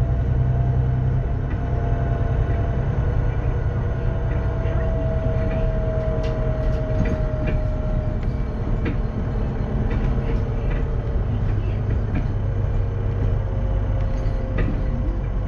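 A VDL DB300 double-decker bus's Cummins ISBe 6.7 straight-six diesel engine and Voith DIWA automatic gearbox running steadily under way. A thin whine slowly falls in pitch over the first half and returns faintly near the end, with scattered clicks and rattles from the bus.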